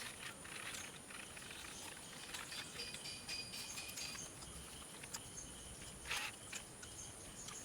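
Faint background ambience with scattered soft clicks and a few brief high chirps.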